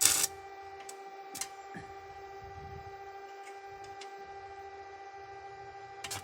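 A steady pitched hum, a machine or electrical hum, with a few sharp clicks and knocks over it, the loudest right at the start.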